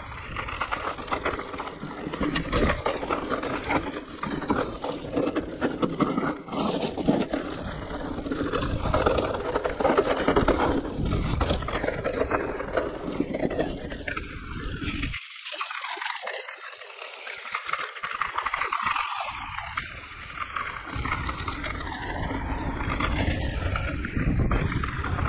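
Giant Reign E+ e-mountain bike riding down a rough enduro trail: tyres rolling and rattling over roots and stones, with many small knocks. The low rumble drops away for a few seconds about fifteen seconds in, then returns.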